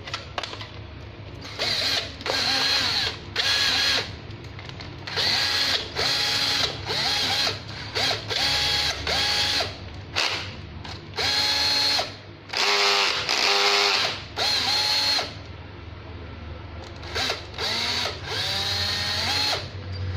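Ryobi BD123 12V cordless drill-driver run in many short trigger pulls, its motor whining up to speed for about half a second and stopping each time, on a battery pack that measures 10 V. About halfway through there is a brief stretch of fast rattling.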